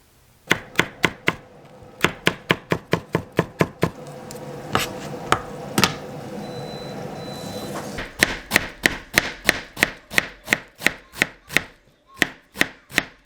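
Knife chopping on a cutting board in quick, even strokes, about three to five a second, pausing briefly twice.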